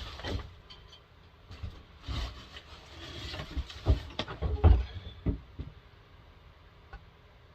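Handling noises from a chainsaw being worked on: a run of knocks, clunks and rubbing in the first five and a half seconds.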